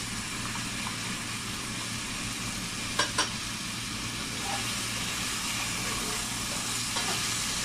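Vegetables sizzling steadily as they stir-fry in a stainless steel wok, with two sharp taps about three seconds in. Near the end, the spatula tossing and scraping through the pan.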